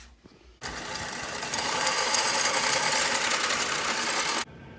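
Electric drum-type drain-cleaning machine running, its motor and spinning cable making a loud, dense whirring noise. It starts suddenly about half a second in and cuts off abruptly near the end.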